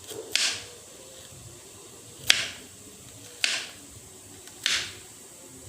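A kitchen knife slicing kencur (aromatic ginger) root: four sharp chops, roughly one every one to two seconds.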